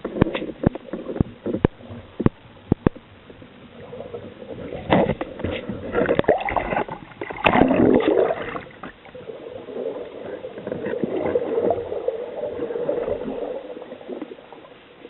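Water heard on an underwater recording: a quick series of sharp clicks in the first few seconds, then gurgling and rushing water that fades to a steady wash.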